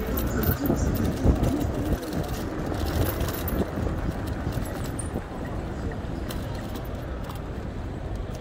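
City street traffic: a steady low rumble of passing vehicles, with scattered light clicks and rattles.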